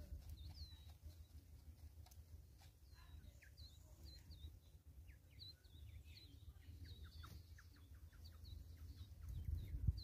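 Faint high chirps and short falling peeps of small birds, many in quick succession, over a steady low rumble.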